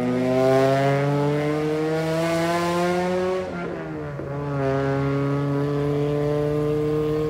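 Motorcycle engine accelerating, its pitch rising steadily. About three and a half seconds in it shifts up a gear with a brief dip, then pulls on at a steady, slowly rising note as the bike passes close by.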